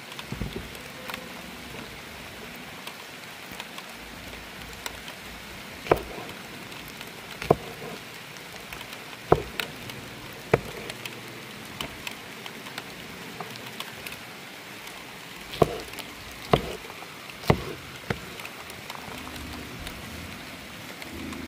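Sharp, short knocks at irregular intervals, roughly one every one to four seconds, over a steady hiss.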